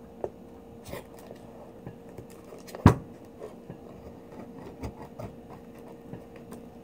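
Serrated knife blade scraping and clicking against the edge of a large pearl oyster shell as it is worked in to pry the shell open, with one sharp, louder click about three seconds in.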